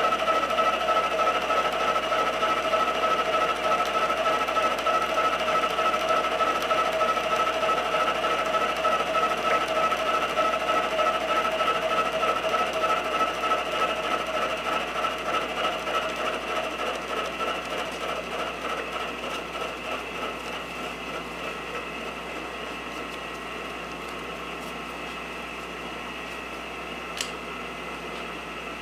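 Milling machine end mill side-cutting a hex flat on a 4140 steel part, a steady ringing cut with several fixed pitches and a fast flutter. It grows quieter through the second half as the cut runs out, and there is one short sharp tick near the end.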